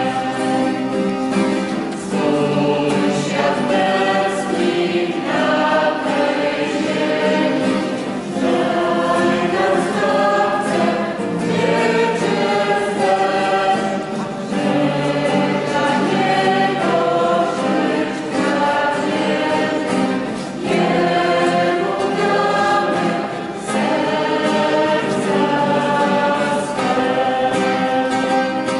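Mixed choir of men's and women's voices singing a Polish hymn, with an acoustic guitar strummed alongside. The song runs in phrases a few seconds long, with short breaths between them.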